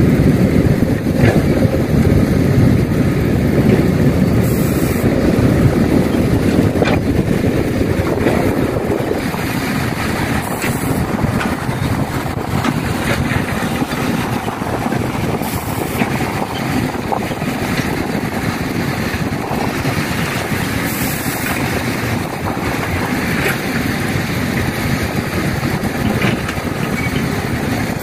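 Heavy diesel machinery running continuously, the engines of an excavator and dump trucks working at a soil dig, somewhat louder for the first several seconds, then steady, with wind buffeting the microphone.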